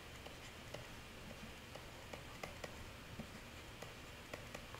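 Faint, short clicks and taps of a stylus writing on a digital pen tablet, coming irregularly about one or two a second over low room hiss.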